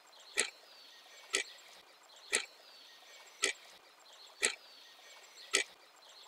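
Countdown-timer tick sound effect: a short sharp tick about once a second, six in all, in step with a timer counting down the seconds left to answer.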